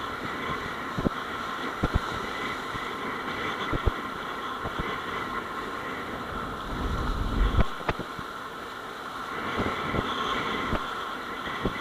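Kitesurf board skimming choppy water, with wind rushing over the action camera's microphone and irregular sharp knocks and slaps as the board hits the chop. A stronger low rumble of wind buffeting comes about seven seconds in.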